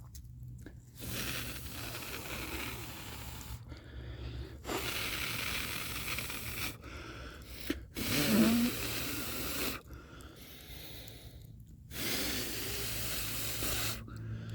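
A person blowing hard on kindling to get a bonfire to catch: four long breathy blows of about two seconds each, with short pauses between.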